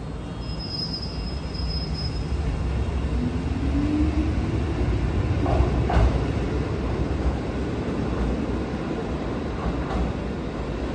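Kotoden electric commuter train running on the rails, a steady low rumble that grows louder toward the middle. A thin high squeal comes early on, a short rising squeal about four seconds in, and a couple of knocks about six seconds in.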